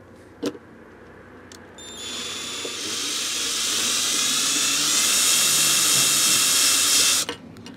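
Cordless power drill running a universal socket, whirring steadily for about five seconds as it unscrews a triangle-headed screw from a block of wood, then stopping just before the end.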